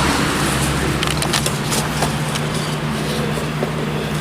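Steady car interior noise: a constant engine and road hum, with a few small clicks and rustles of handling.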